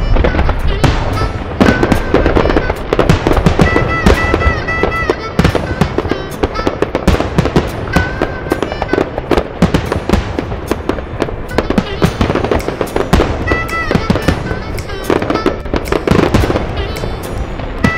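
Fireworks display: a dense run of bangs and crackling from aerial shells bursting in quick succession.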